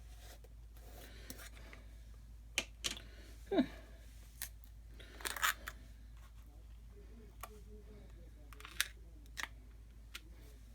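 Small craft tools and a chalk paste jar being handled: a scatter of sharp clicks and taps, with a brief scrape about five seconds in.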